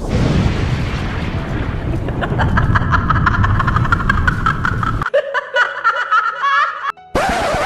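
Fight sound effects: a loud, dense rumble like an explosion, with a quick rattling building over it, that cuts off suddenly, followed by a short snickering, laugh-like sound and a brief burst of hiss near the end.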